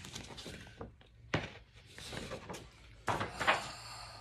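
Large sheets of painting paper being handled and shuffled, rustling, with a sharp tap about a second in and a louder flurry of rustling around three seconds in.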